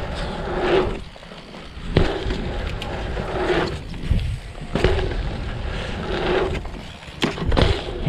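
Mountain bike tyres rolling over a line of dirt jumps, the noise swelling and fading with each jump, with a couple of sharp knocks near the end as the bike lands.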